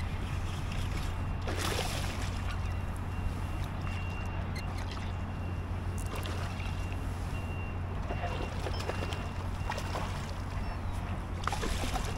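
Water lapping and trickling around a kayak, over a steady low rumble, with a few small knocks.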